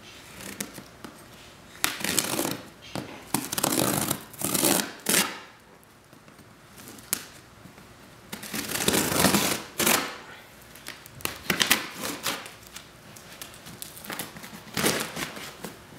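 Packing tape being picked at and peeled off a cardboard shipping box, in several separate stretches of ripping and crinkling with short pauses between.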